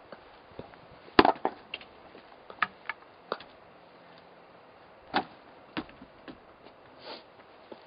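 A splitting axe chops a round of firewood with one sharp strike about a second in. Split pieces of wood then knock together several times as they are handled, with another loud wooden knock about five seconds in.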